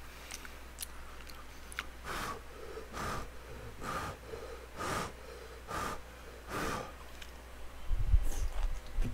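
A man huffing six short, hard breaths out through his mouth, about one a second, to cool scalding-hot food as he eats. A low bump follows near the end.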